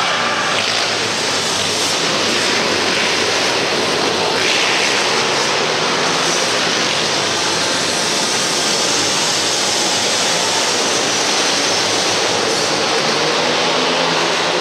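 Several pit bike engines running together as the bikes race around an indoor dirt track, a loud steady blended engine noise that echoes in the arena hall.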